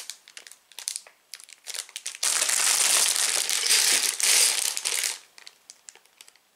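Plastic Lego parts bags crinkling as they are handled, with a few scattered crackles at first and a dense, loud stretch of crinkling for about three seconds in the middle before it thins out to light ticks.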